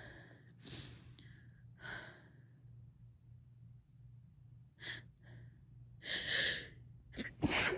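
A woman's shaky gasps and sighing breaths as a sneeze builds, spaced a second or more apart, with a longer gasping breath about six seconds in. Then, near the end, comes one sudden, sharp stifled sneeze, the loudest sound.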